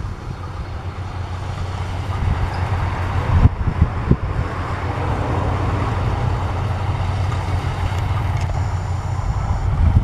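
Yanmar AW82V rice combine harvester running steadily, a constant low engine hum under the clatter of its machinery, with a couple of brief knocks a few seconds in.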